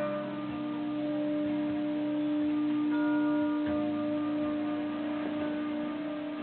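Music: one long held note with bell-like tones, and higher sustained notes joining about halfway through.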